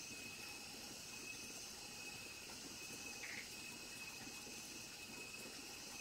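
Night insects trilling steadily at one high pitch over a faint hiss of more insects, with a single short chirp about three seconds in.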